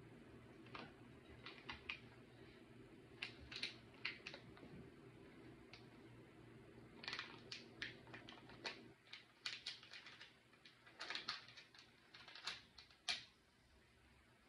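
Plastic lip gloss blind-bag packet crinkling as it is handled, in scattered short crackles and clicks.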